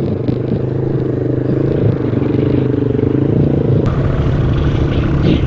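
ATV engine running steadily at low revs close by. About four seconds in there is a sharp click, after which a brighter hiss joins the engine.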